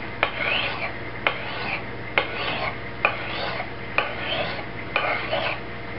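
Smith & Wesson Guide Master tanto blade being stroked across a sharpening stone about once a second. Six strokes, each a light click as the edge meets the stone followed by a short scrape.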